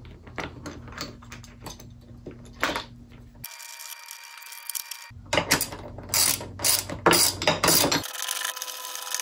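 Small hand ratchet clicking in quick runs as it tightens the mounting bolts of a motorcycle rear luggage rack. The runs are broken by a few abrupt cuts.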